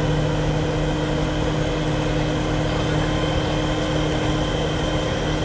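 Heavy machinery engine running steadily at constant speed, a continuous drone with a steady hum, as the crane holds a lifted concrete floodgate panel.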